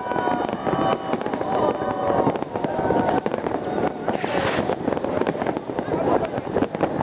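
Fireworks display: a dense, rapid crackling of many small bangs, with whistling tones in the first couple of seconds.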